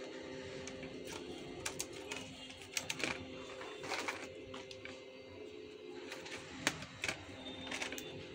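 Scattered plastic clicks and knocks as a laptop motherboard is handled and pressed into its plastic bottom case, with the sharpest click about two-thirds of the way through.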